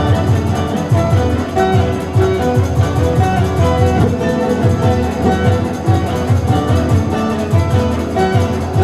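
Music with guitar-like plucked strings over a steady, rhythmic bass line.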